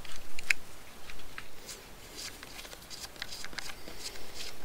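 Scattered light clicks and scrapes of hands handling a plastic suction hose and the priming cap of a small electric surface water pump, in an irregular patter.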